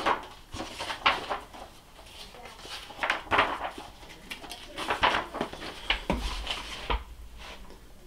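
Pages of a picture book being opened and turned: paper rustling and flapping in several short bursts, with a low thud about seven seconds in.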